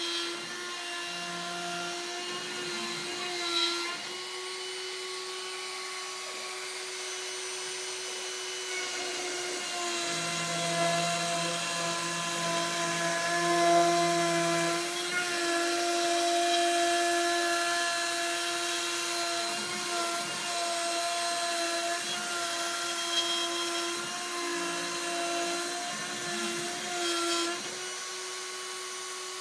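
Torchmate 2x4 CNC router spindle running and routing MDF, a steady whine with overtones. The tone shifts now and then, with a lower hum added for a few seconds near the middle.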